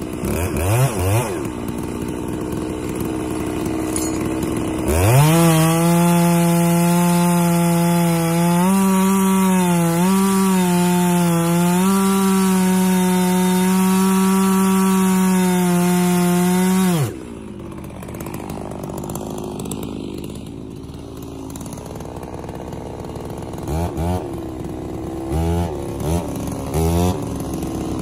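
Petrol chainsaw bucking a log: a quick rev from idle, then full throttle for about twelve seconds as it cuts, the pitch dipping slightly as the chain loads in the wood, before it drops back to idle. It idles on, with three short throttle blips near the end.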